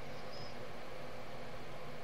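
Steady low hiss of the recording's background noise with a faint even hum, in a pause between spoken sentences.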